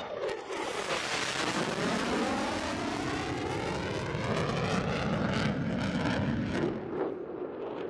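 F-16 fighter jet's engine noise as the jet makes a low pass, with a whooshing sweep that falls in pitch as it goes by and eases slightly near the end.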